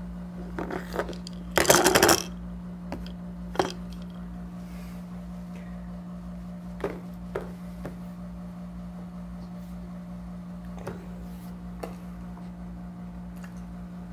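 Clear plastic ring rattle with small balls inside, clattering on a plastic high-chair tray in a short burst about two seconds in. A sharp knock follows, then a few faint taps.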